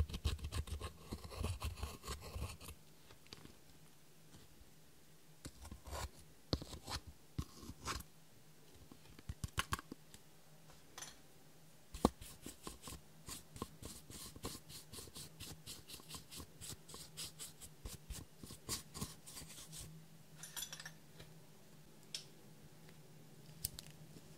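Pressed eyeshadow in a plastic palette being scraped and crushed, first with a pen tip and then with a makeup brush: irregular scratching and small crumbling clicks, some in quick runs.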